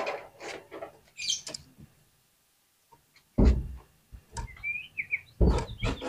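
Oriental magpie-robin calling: short whistled notes mixed with loud, harsh notes, with a brief pause about two seconds in.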